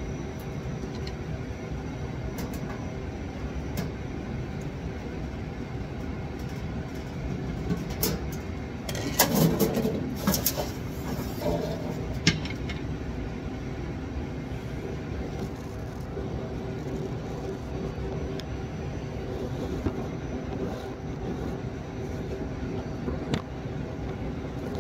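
Stainless sheet-metal panel of a commercial coffee brewer being handled and taken off: a rattling clatter with metallic ringing about a third of the way in and a sharp click shortly after, with lighter clicks scattered through. Under it runs a steady background hum.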